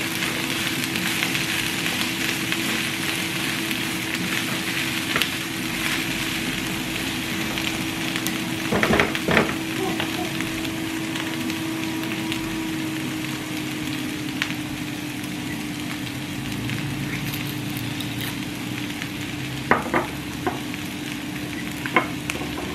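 Brussels sprouts sizzling in hot oil in a frying pan while being stirred with a spatula. There are a couple of sharp knocks about nine seconds in and a few more near the end.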